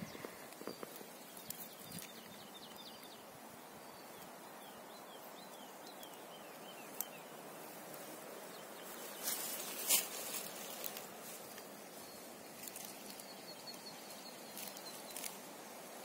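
Quiet forest ambience with small birds singing faintly in the distance, short high chirps now and then. A few brief rustling noises close to the microphone about nine to ten seconds in.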